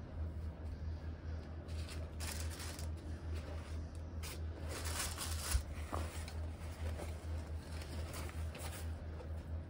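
Handling noise: rustling and scraping of a nylon camouflage harness pouch and rubber-armoured binoculars as they are lifted and moved on a towel, with a single bump about halfway through. A steady low hum runs underneath.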